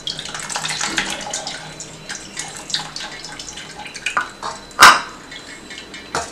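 Water draining and dripping through a stainless-steel colander of freshly rinsed flattened rice into a steel bowl below, with a sharp knock about five seconds in and another near the end.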